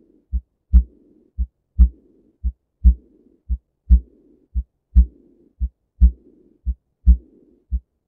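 Recorded heart sounds with a murmur: a steady lub-dub about once a second, and a soft rushing noise filling the gap after each louder heart sound.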